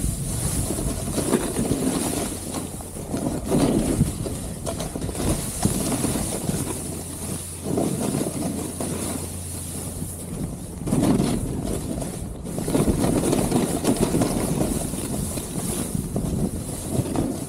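Wind buffeting the camera microphone while a Gnu Headspace snowboard slides over snow. Louder swells of board-on-snow scraping come every couple of seconds as the rider turns.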